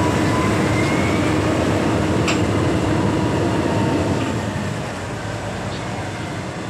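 Heavy crushing-plant machinery running: a loud, steady rattling rumble, with a sharp clank about two seconds in. It eases slightly after about four seconds.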